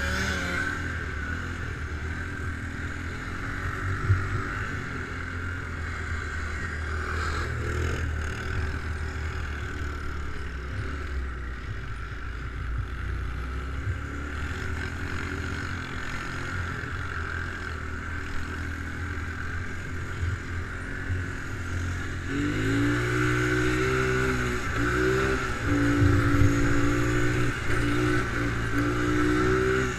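ATV engine running steadily at low revs, then revving up about two-thirds of the way in, its pitch climbing, dipping briefly and holding high.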